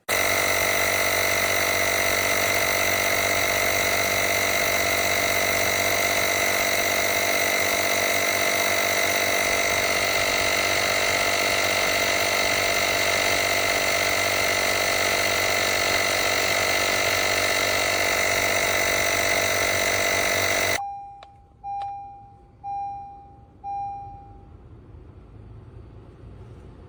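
HYVOHEX corded portable tire inflator's electric air compressor running steadily for about twenty seconds, then shutting off suddenly, followed by four short electronic beeps about a second apart, typical of the inflator reaching its preset pressure.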